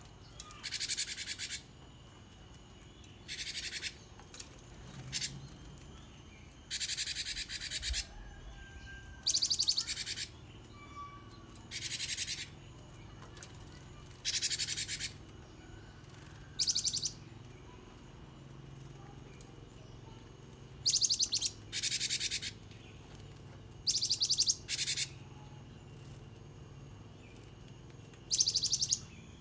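Caged gelatik batu (gelatik wingko) songbird calling in short, rapid high-pitched trills, each about a second or less, repeated about a dozen times with pauses in between.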